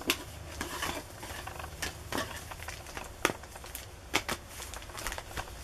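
Foil Pokémon booster packs crinkling and rustling as a stack of them is shuffled by hand, with scattered sharp crackles.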